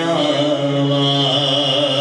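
Male naat reciter singing, holding one long note with a wavering ornament at its start.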